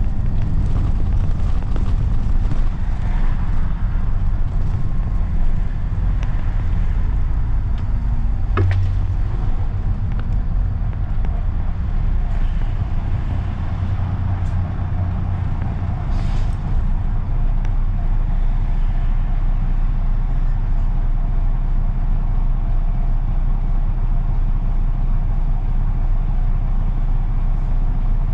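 London double-decker bus heard from on board: engine and road rumble as the bus drives and slows to a stop, then the engine idling steadily at a red light for the second half. A single sharp click about eight seconds in.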